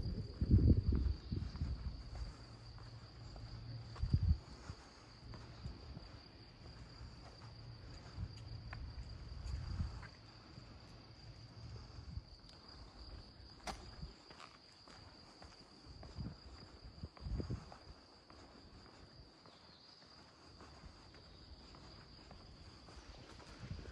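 Insects chirring steadily on one high, even note. Low footstep thuds come through as well, mostly in the first ten seconds and again briefly later on.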